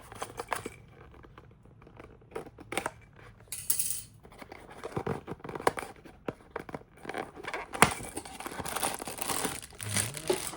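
Cardboard blind box being opened by hand: scattered clicks and taps of the packaging and the small plastic figure being handled, then steady tearing and crinkling of the wrapping from about eight seconds in.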